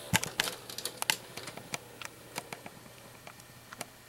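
A run of sharp, irregular clicks and taps, close together in the first second or so and then more scattered.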